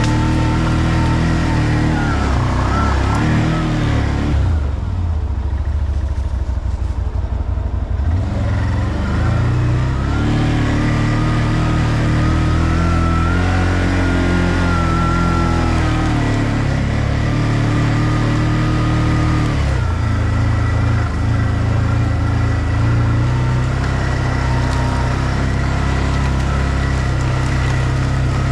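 ODES 650 ATV engine running under way, its pitch rising and falling with the throttle. About five seconds in it drops to a low, uneven throb for a few seconds, then picks up again.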